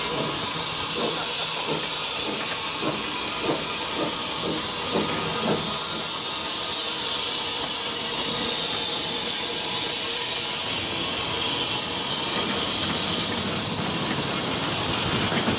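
Small tank steam locomotive hissing steam steadily. In the first few seconds there are soft regular knocks about two to three a second.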